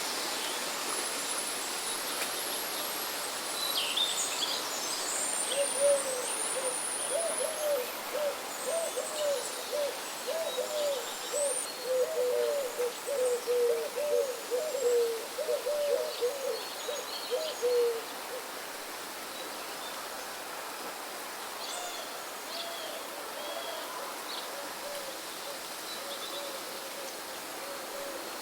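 Steady wind and rain hiss with wild birds calling. High chirps and whistles come early, and a low hooting call runs in a rapid string of notes for about twelve seconds in the middle, then again more faintly near the end.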